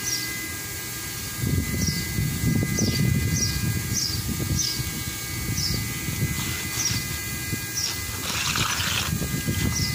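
A bird chirping again and again, short falling chirps about every half second, over a steady high whine. A low rumble comes in about one and a half seconds in, and a short hiss sounds near the end.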